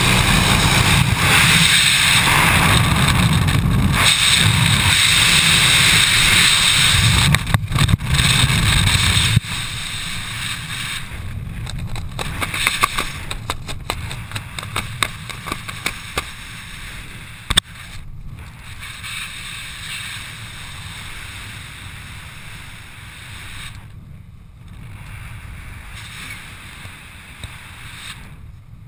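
Wind rushing loudly over a skydiver's helmet-camera microphone, first in the jump plane's propwash at the wing strut and then in freefall, dropping sharply about nine seconds in as the parachute opens. After that comes softer wind under canopy, with a run of quick ticks from fluttering canopy fabric and one sharp snap.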